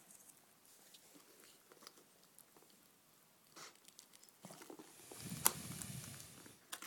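Faint handling noise: scattered light clicks and rustling, with one sharp click about five and a half seconds in.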